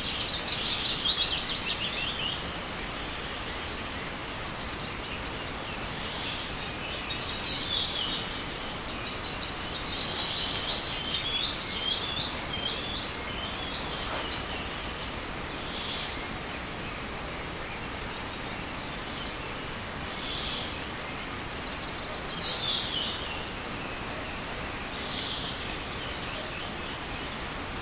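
Songbirds singing in a spring forest: scattered high-pitched song phrases and short calls, with a trill at the start, a quick run of notes midway and a falling phrase later, over a steady rushing of a small forest river.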